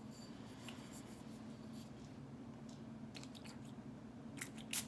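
Faint handling of a glass pump-spray bottle, then two short spritzes from its pump nozzle near the end, the second one louder.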